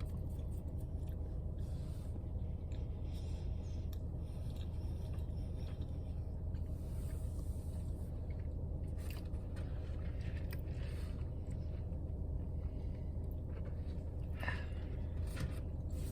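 A person quietly chewing food, with faint scattered clicks and light handling noises, over a steady low hum.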